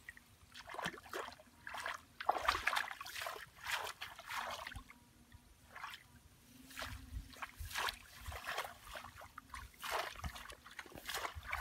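Hands and feet sloshing and splashing through shallow muddy water and submerged grass in a run of irregular bursts as someone feels about for fish by hand, with a few dull low thuds from wading steps around the middle.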